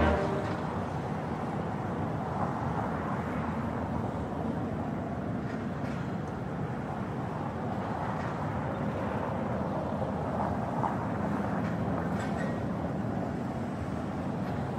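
Steady hum of distant city traffic, an even rumble with no distinct events.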